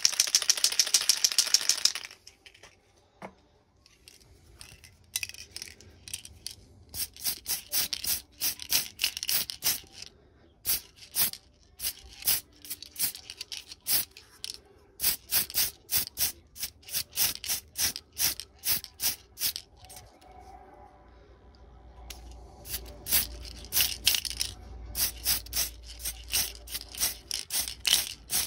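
Tamiya aerosol spray paint can in use: a loud hiss of spray for about two seconds at the start, then, after a pause, long runs of short rapid bursts, several a second.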